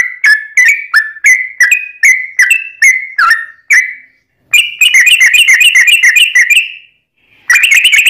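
Yellow-vented bulbul (trucukan) singing loudly. A string of repeated chirps comes about three a second, then after a short break a fast rapid-fire run of notes, and near the end, after another pause, a second fast run begins.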